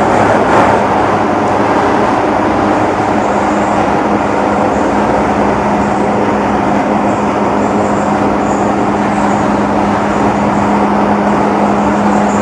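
Steady mechanical running noise with a constant low hum that becomes stronger about halfway through.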